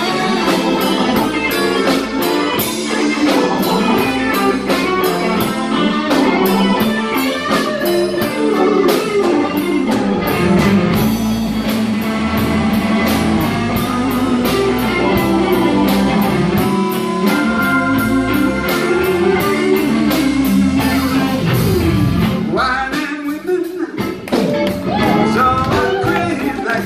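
Live blues band playing, electric guitar to the fore over bass and drums with a steady beat.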